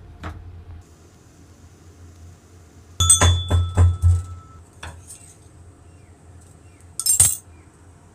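Metal kitchen utensils clinking and knocking against a cooking vessel, in two sharp clusters about four seconds apart. The first cluster leaves a brief ringing tone.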